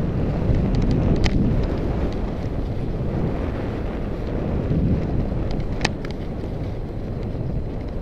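Wind buffeting the microphone of a camera carried by a skier moving downhill, with skis hissing over the snow. A couple of sharp clicks stand out, one about a second in and one about six seconds in.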